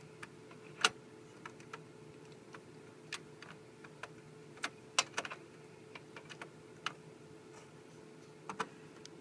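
Small, irregular plastic-and-metal clicks and taps as a processor held in its plastic insertion tool is fitted onto a server CPU socket. The loudest click comes about a second in, and a faint steady hum runs underneath.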